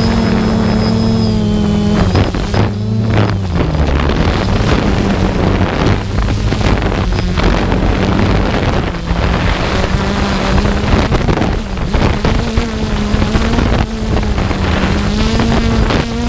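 Small aircraft's motor and propeller running steadily, with wind rushing over the microphone; the engine pitch dips a few seconds in and rises again later.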